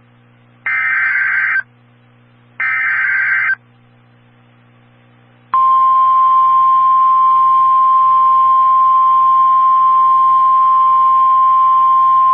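NOAA Weather Radio emergency alert. Two short buzzy SAME digital header bursts, each about a second long and a second apart, end a set of three. About two seconds later the steady single-pitched 1050 Hz warning alarm tone begins and holds, signalling that an alert message is about to be read.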